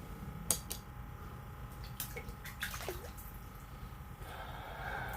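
Water splashing and dripping, with several sharp clicks, as a crappie is pulled up and out through an ice-fishing hole.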